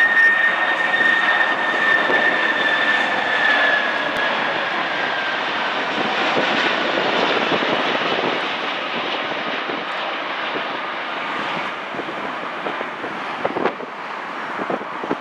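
A McDonnell Douglas MD-11F trijet on final approach: steady jet engine roar with a high fan whine that drops slightly in pitch a few seconds in as it passes. The roar then eases off as the aircraft flares over the runway.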